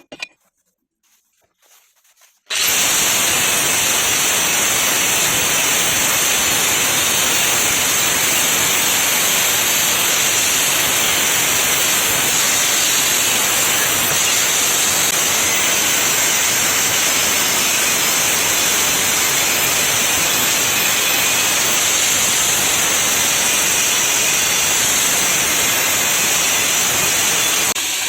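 A few light clicks, then about 2.5 s in a power tool starts and runs steadily on steel, a loud, even, hissing grind.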